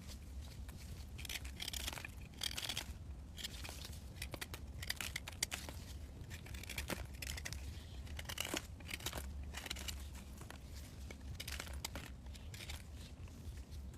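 Crisp, irregular tearing and crinkling, in short bursts a second or so apart, as of dry material being torn or crumpled by hand, over a steady low hum.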